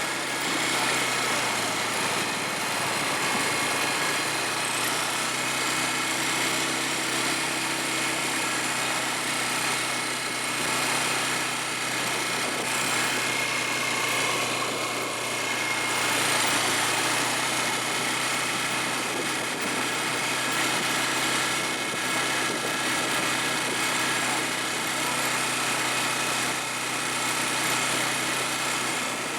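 ATV engine running steadily, with a haze of noise over it and no clear changes in speed.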